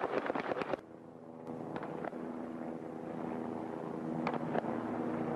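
A rapid run of sharp cracks that cuts off abruptly about a second in. Then a steady motor hum, typical of a vehicle engine running, with a few scattered clicks.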